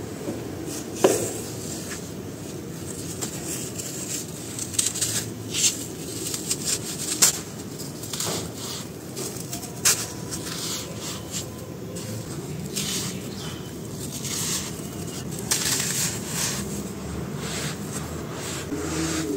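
Dry sand-cement chunks crumbled and snapped apart by hand over loose powder: irregular sharp crunches and crackles over a steady gritty rustle, with the loudest snap about a second in.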